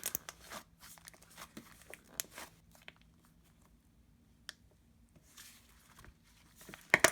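Butter slime being squished and stretched by hand, giving off small irregular crackling pops (the slime's sizzle).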